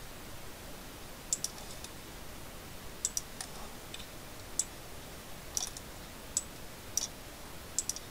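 Computer mouse clicking: about a dozen sharp single clicks and a few quick double-clicks, spread irregularly.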